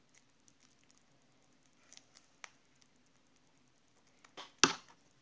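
Small scissors snipping excess plastic off the top of a small bag: a few faint, sharp clicks, then one much louder clack with a brief rustle near the end.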